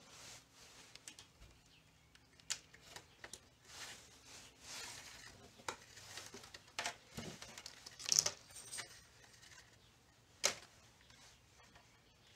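Faint scattered clicks and rustles of a wire and small parts being handled against a plastic scooter trunk, with a short high scrape about eight seconds in and a sharper click a couple of seconds later.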